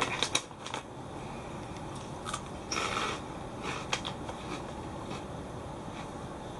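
A foil snack bag crinkles as a hand reaches into it in the first second. Then baked Calbee Kappa Ebisen prawn crackers crunch crisply in a few bursts as they are bitten and chewed, and it goes quieter toward the end.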